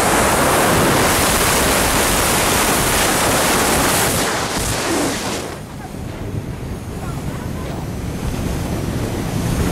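Wind blasting the microphone and rushing water from a powerboat running fast, a loud, even roar that drops sharply about five and a half seconds in, leaving a lower rushing noise.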